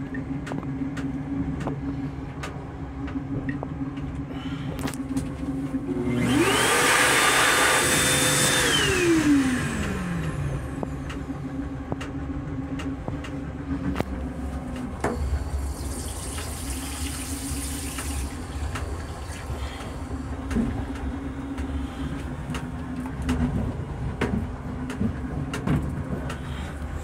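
Steady hum of a Metro-North M7 railcar restroom. About six seconds in, a motor spins up with a loud rushing hiss, runs for about three seconds and winds down. A softer high hiss follows briefly around sixteen seconds in.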